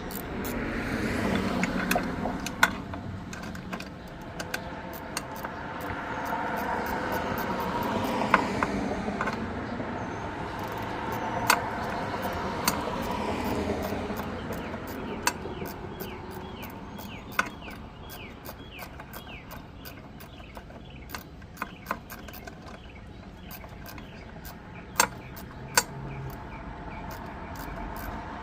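Road vehicles passing by, their sound swelling and fading several times, with scattered sharp clicks and knocks and a run of short repeated ticks in the second half.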